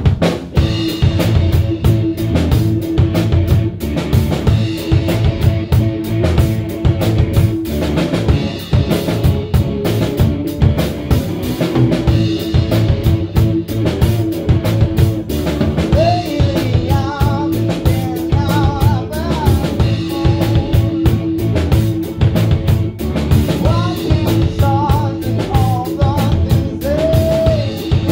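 A rock band playing live: drum kit keeping a steady beat under electric guitar and bass, with a held note ringing over it. A voice sings over the band in the second half.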